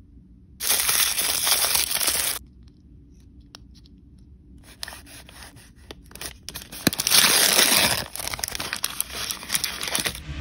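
Foil and plastic blind-bag wrappers crinkling and tearing as they are opened and handled by hand. There is a loud burst of crinkling in the first two seconds, a quieter stretch with small clicks, then more crinkling that is loudest around seven to eight seconds in.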